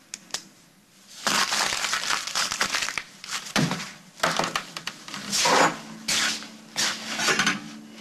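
A sheet of paper crumpled and crushed in a hand, crackling in three rough spells after about a second of quiet.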